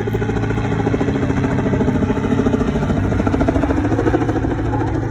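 Helicopter flying close by, its rotor and engine running steadily with a rapid pulsing chop.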